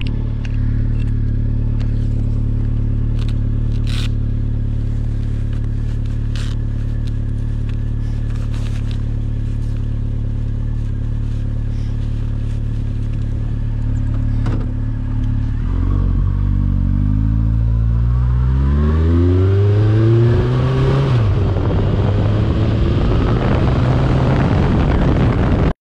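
Honda CB1300 S inline-four engine idling steadily, with scattered clicks and rattles. A little past halfway the motorcycle pulls away: the engine note rises, dips at a gear change, then rises again as road and wind noise build.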